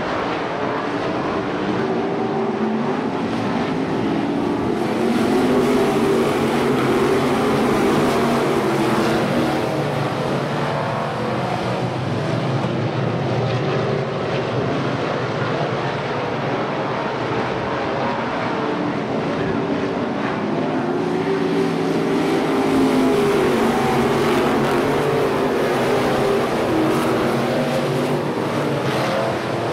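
USRA Limited modified dirt-track race cars' V8 engines running hard as the field races around the oval. The sound swells twice as the pack comes past, about five seconds in and again around twenty seconds in.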